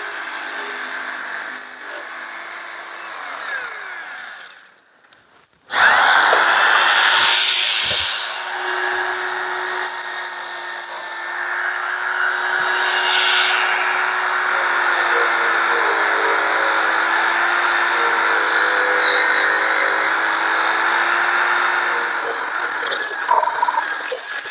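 Electric finger file belt sander running, its narrow abrasive belt filing the freshly cut sheet-metal edges of window openings in a van panel to tidy and straighten them. It goes quiet about four seconds in, then starts again under two seconds later and runs on steadily.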